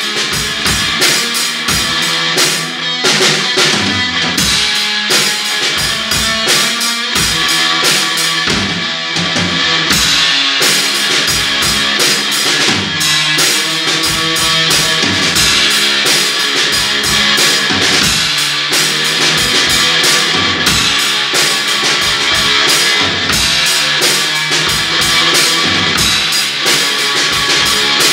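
Instrumental garage-punk rock jam, loud and continuous: a drum kit pounding with heavy bass drum and rimshots under a noisy electric guitar.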